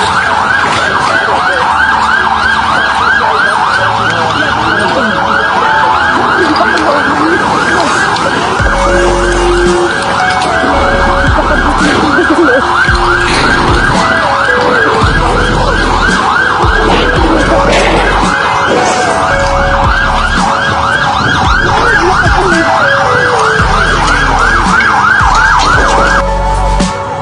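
Emergency vehicle siren sounding a fast yelp, about three rising sweeps a second, cutting off near the end.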